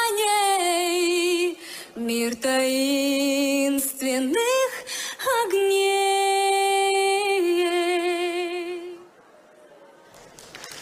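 A woman's solo voice singing a cappella through a microphone, long held notes with vibrato. The last note fades about nine seconds in, and applause begins to rise near the end.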